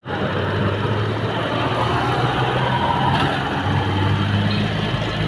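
Motor vehicle engine running steadily, a low hum over traffic noise.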